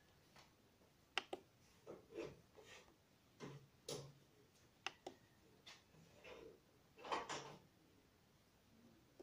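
Faint fingertip taps and clicks on a Korg Pa1000 arranger keyboard's touchscreen, a dozen or so at uneven intervals, with a quick cluster about seven seconds in.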